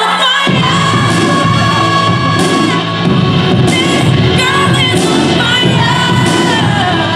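Loud recorded pop music with a sung melody; a full low backing comes in about half a second in.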